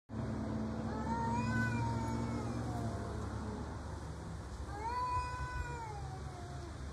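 Domestic cat yowling while squared off nose to nose with another cat: two long, drawn-out yowls, the first rising and then slowly sliding down over about three seconds, the second starting about a second later and lasting under two seconds. A low steady hum runs underneath.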